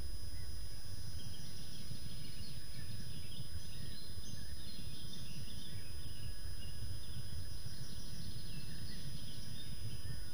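Outdoor ambience: a steady low rumble with many small birds chirping and singing in the background, and a faint steady high-pitched whine.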